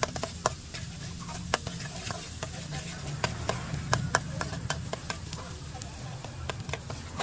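A metal spatula scraping and clinking against a steel wok as chopped garlic sizzles in hot oil, with irregular sharp clicks from the spatula strikes over a steady sizzle.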